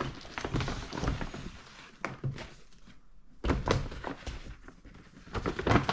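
A present being unwrapped and handled: rustling, then several dull knocks and thunks as the box is moved about.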